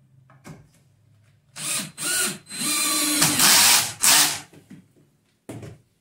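Cordless drill-driver driving a screw into a wooden post, running in four or five bursts of whirring, the longest about a second and a half, with a short last burst near the end.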